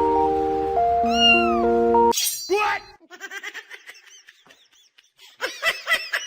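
Cat meowing: one short meow over background music with held notes, then after a cut a loud drawn-out meow followed by a run of short, high-pitched mews near the end.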